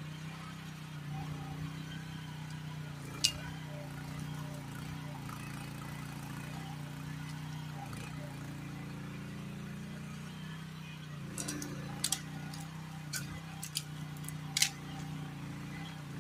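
Groundhog KH14G mini excavator's engine running steadily at a low drone while the boom works the brush. Sharp snaps and clicks break in: one loud one about three seconds in and a cluster of several near the end.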